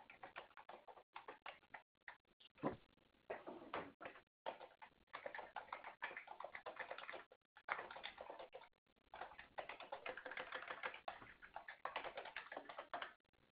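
Faint, rapid clicking of typing on a computer keyboard, in runs broken by short pauses.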